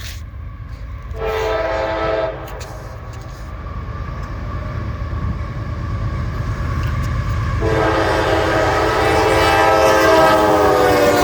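Approaching freight train's diesel locomotive sounding its multi-note air horn: a short blast about a second in, then a long blast from near the end, over a low engine and rail rumble that grows louder as the train nears.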